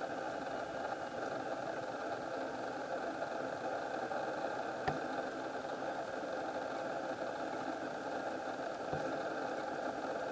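Steady mechanical hum that does not change, with one short click about five seconds in.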